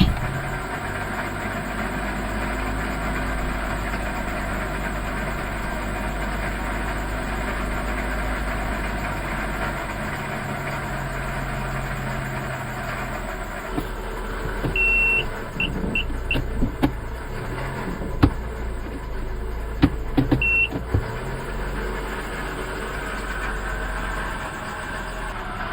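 A 2012 Mazda 3's 2.0-litre four-cylinder engine idling steadily just after starting, with a bad pulley bearing in the belt drive. About halfway through come a few short, high electronic beeps and several clicks and knocks.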